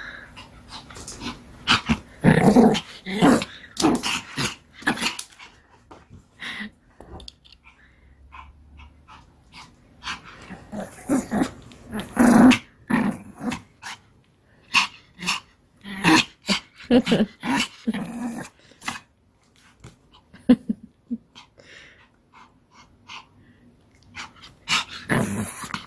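Pomeranian growling in bursts, with a few short barks, while playing with a ball and tugging at it in a person's hand.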